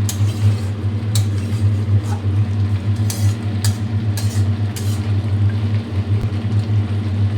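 A spatula clinks and scrapes against a kadai about half a dozen times while the curry is stirred, over a steady low hum.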